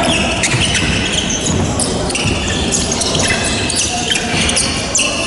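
Basketball game sounds on a hardwood gym court: the ball bouncing and sneakers squeaking in short, high chirps several times, with scattered player voices, all echoing in the large hall.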